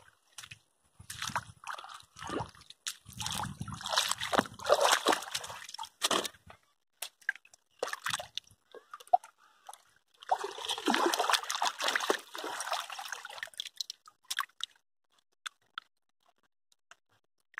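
Hands sloshing and splashing in shallow river water in two spells, the second beginning about ten seconds in, with small drips and splashes between.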